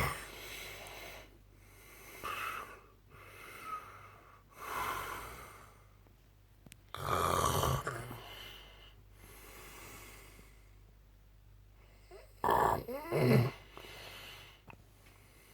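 A man snoring in his sleep: a series of snores one to three seconds apart, a long loud one about halfway through and two loud ones close together near the end, with quieter breaths between.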